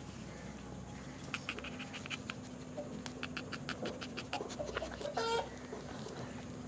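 Newborn American bully puppies squeaking and whimpering as the mother dog noses and licks them. There are quick runs of short high squeaks, and a single longer whine a little after five seconds.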